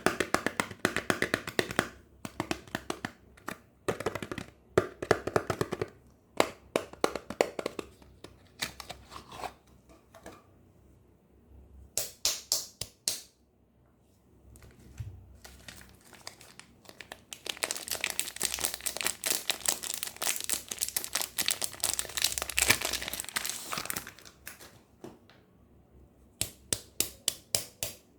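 Crinkling, crackling and tearing of soap wrappers being unwrapped by hand, in bursts with short pauses, densest in a long run past the middle.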